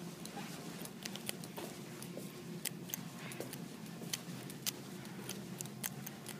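Slow, shuffling footsteps in Ugg boots, with scattered light clicks and scuffs a few times a second, over a steady low hum.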